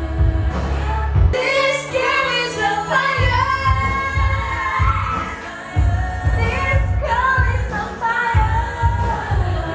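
A woman singing a pop song over a backing track with a heavy bass beat.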